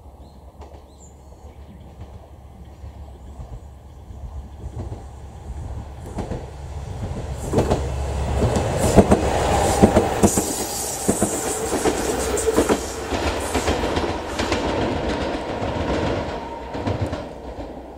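Two-car JR Shikoku 2000 series diesel railcar passing at speed: its engines running and its wheels clicking over rail joints. It builds to a peak about nine to twelve seconds in, then fades as it runs away.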